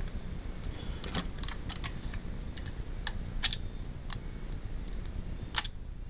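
Scattered light clicks and taps from small objects being handled by hand, at irregular intervals with the sharpest near the end, over a low steady hum.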